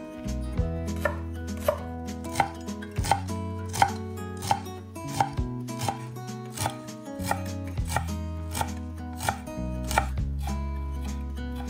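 Knife chopping food on a cutting board: slow, even strokes, about three every two seconds.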